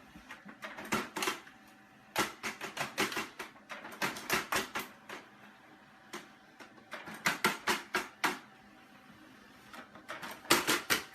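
Quick bursts of sharp clicks and taps, several a second, in irregular clusters with short pauses between them.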